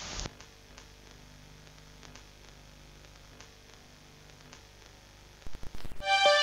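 Faint static hiss with a low hum and scattered crackles, opening with a short loud burst of static. Near the end come a few louder glitchy bursts, then music with held notes starts.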